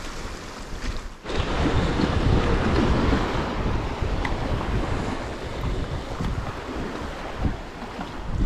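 Wind buffeting the microphone over sea waves washing against a rock shore, a steady rushing with gusty low rumbles that dips briefly about a second in.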